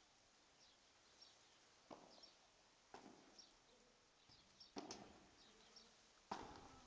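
Faint padel rally: four sharp hits of the ball, each with a short ring, spaced one to two seconds apart. Small birds chirp throughout in the background.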